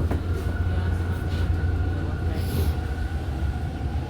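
TTC subway train running between stations, heard from inside the car: a steady low rumble with a steady whine over it. A brief hiss comes about two and a half seconds in.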